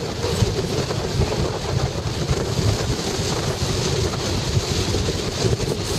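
Steady road and engine rumble of a car driving, with wind buffeting the microphone.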